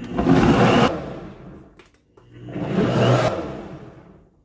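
Kitchen blender running in two bursts of about two seconds each, grinding pineapple chunks with a little water; each burst starts up and winds down again.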